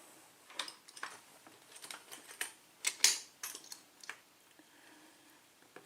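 Small metal clicks and scrapes of hand tools working on a euro cylinder lock during disassembly, with a longer, louder scrape about three seconds in.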